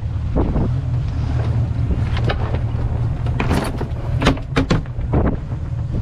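Wind buffeting the microphone as a steady low rumble on a small boat. Over it, from about the middle on, a handful of sharp knocks and clatter as gear, including a folded lift bag, is moved about in the boat's stowage.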